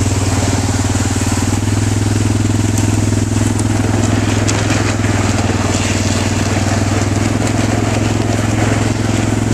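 Yamaha Grizzly ATV's single-cylinder four-stroke engine running steadily under load as it tows a loaded john boat, with the boat's hull dragging out of the water onto gravel.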